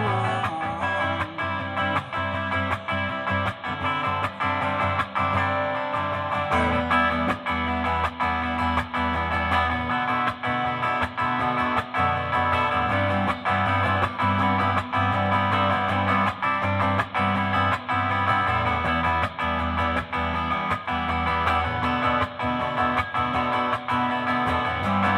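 Hollow-body electric guitar strummed in a steady rhythm through an amplifier, playing sustained chords; deeper bass notes join about six seconds in.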